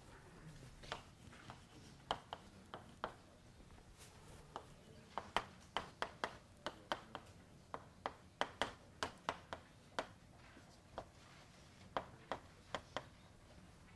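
Chalk writing on a blackboard: a string of sharp, irregular taps and clicks as letters and numbers are written, with a short pause between strokes.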